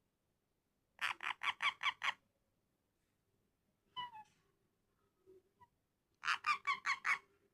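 Pet parrot calling: two quick runs of about six short calls each, one about a second in and one near the end, with a single call in between.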